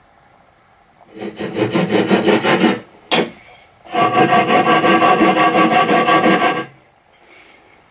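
Japanese pull saw cutting through a softwood board in two runs of quick, rasping strokes, with a brief pause and a click between them. In the second, longer run the blade rings.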